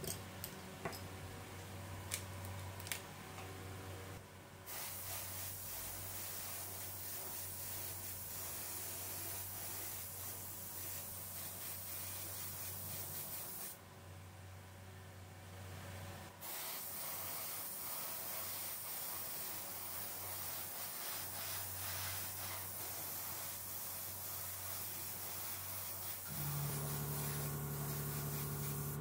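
Paint spray gun hissing as it sprays black paint onto bicycle caliper brake parts, in two long spells with a short break in the middle. A few sharp clicks come in the first seconds, and a steady low hum grows louder near the end.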